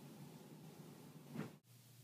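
Near silence: faint room tone with a low hum, broken by one brief louder sound about one and a half seconds in, just before an abrupt cut.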